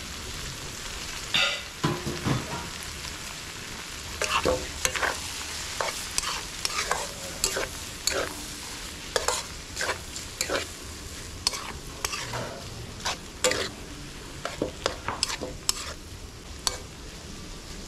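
Chopped pork sautéing and sizzling in fat rendered from pork intestines in a large metal wok, with a metal spatula scraping and clinking against the pan as the meat is stirred. The scrapes come irregularly over a steady sizzle, more often from about four seconds in.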